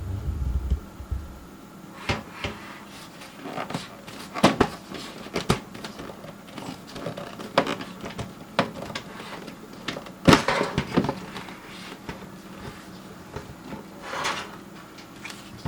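Irregular clicks and knocks from handling a PC case and its front panel, starting with a dull thump, with two sharper knocks standing out and a short scrape near the end.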